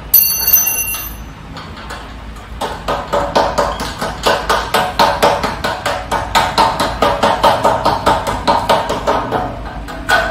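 Hammer striking a metal desk frame during assembly: one sharp blow that rings out high and metallic just after the start, then from about two and a half seconds in a steady run of quick taps, about three a second, each one ringing the hollow metal frame.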